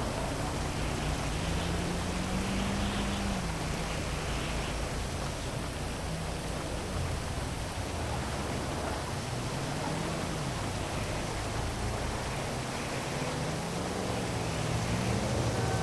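Heavy rain falling as a steady hiss, with the low hum of city traffic underneath, rising and falling slowly in pitch as vehicles pass.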